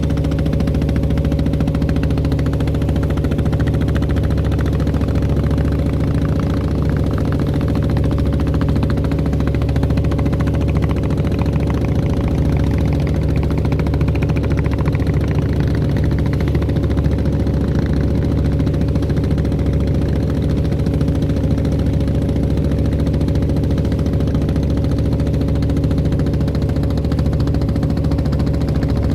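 Engine of a klotok, a small wooden motorboat, running at a constant speed, heard from on board; a steady drone with a few unchanging pitched tones.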